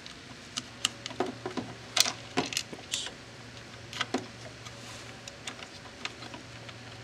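Small irregular clicks and taps of plastic parts being handled while a rubber drive belt is stretched over a small guide wheel in a Coinco Mag bill validator's plastic lower assembly, busiest in the first half. A low steady hum lies underneath.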